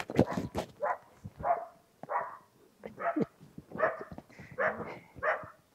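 A dog barking repeatedly, about one bark every two-thirds of a second, with a few clicks and rustles at the start.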